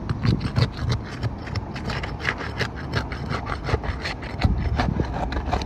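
Rapid, repeated scraping and rubbing across the gritty surface of an asphalt roof shingle, about five strokes a second, with a steady low rumble underneath.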